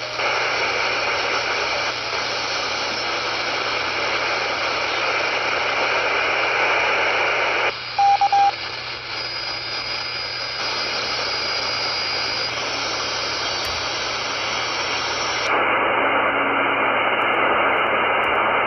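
FM receiver hiss from a software-defined radio tuned to CB channel 20 FM (27.205 MHz), where a CB repeater is being keyed up. About 8 seconds in, three short beeps sound. Later the hiss turns duller as its higher part cuts off suddenly.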